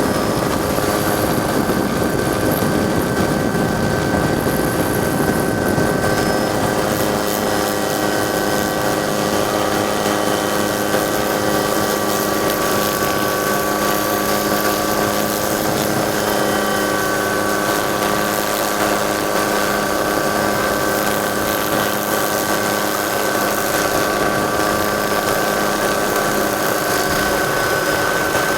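Helicopter running steadily, heard from on board: a constant engine drone with a high whine held at an even pitch.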